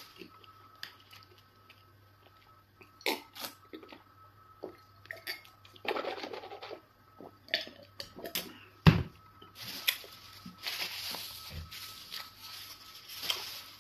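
Close-up mukbang eating sounds: wet mouth clicks and chewing, gulps of water from a glass about six seconds in, and one sharp knock near nine seconds. Breathy rustling follows as a tissue is wiped across the nose and mouth.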